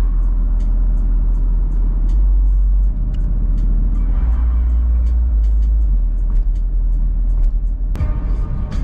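Steady low rumble of a car driving slowly along a town street, heard from inside the cabin: engine and road noise. There is a sharp break near the end.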